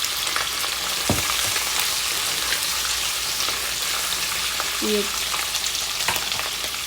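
Food sizzling steadily in hot oil in a frying pan, with a couple of light knocks from a stirring utensil.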